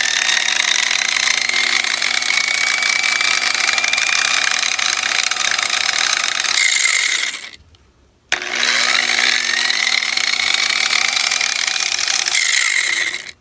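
Angle grinder running at reduced speed, fed through a series capacitor (the larger of two) that limits its motor speed. It is switched off about seven and a half seconds in and restarted under a second later, its whine rising as the disc spins up, then stops just before the end.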